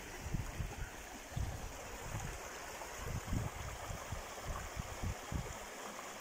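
Shallow mountain river running steadily over stones and around a snag of branches and shelf ice, with soft irregular low rumbles coming and going beneath the rush of water.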